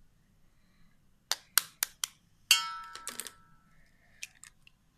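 A raw egg tapped four times against the rim of a stainless steel bowl, then knocked harder so that the bowl rings briefly, followed by the crackle of the shell breaking open.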